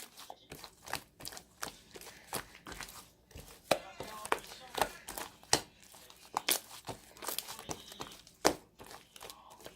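Slime being squished and worked by hand, making irregular sharp clicks and crackles.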